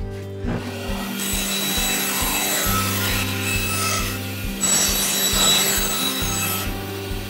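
Band saw cutting a thin strip of wood, the blade rasping through it in two long passes.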